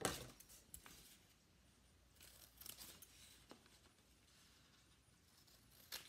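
Scissors cutting through construction paper: a few quiet snips with paper rustling, the loudest right at the start and a faint cluster of cuts around two to three seconds in.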